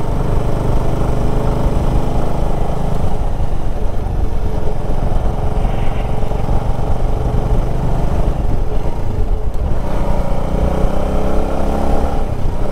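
Motorcycle engine running while riding, with heavy wind rush over the microphone; the engine note rises near the end as the bike accelerates, then the sound cuts off suddenly.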